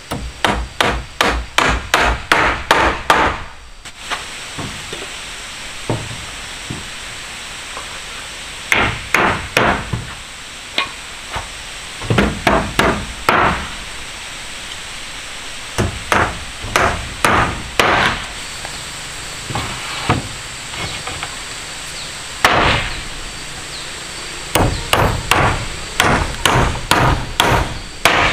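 Hammer blows struck in quick runs, a fast run of about eight at the start and shorter runs of several blows with pauses between them after that.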